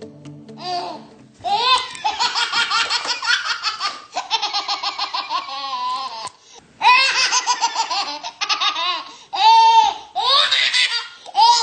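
A young child laughing hard in long, high-pitched fits of rapid, pulsing laughter, broken by brief pauses for breath.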